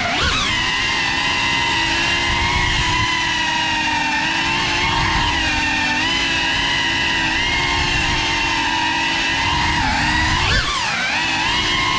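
FPV drone's electric motors and propellers whining steadily in flight, picked up by the GoPro riding on the drone. The whine dips and swoops in pitch at the start and again about ten seconds in.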